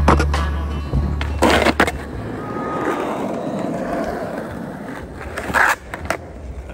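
Skateboard on a ledge and asphalt: sharp clacks of the board hitting and leaving the ledge near the start and again about a second and a half in, then the wheels rolling over rough asphalt, with another clack near the end.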